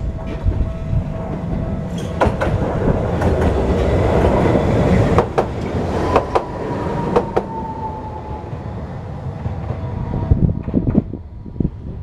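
Tokyu Setagaya Line tram passing close by, its running noise building to a peak and then easing off, with its wheels clacking sharply over the rail joints several times. A thin high whine slides slowly down in pitch as the tram goes by.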